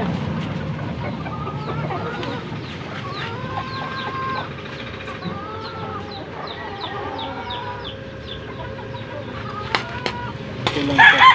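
Chickens clucking in a string of short, arching calls, with quick high chirps among them; near the end a rooster starts to crow loudly.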